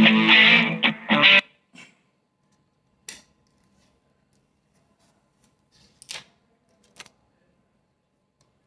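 Distorted electric guitar music that cuts off abruptly about a second and a half in. A few short, separate clicks follow.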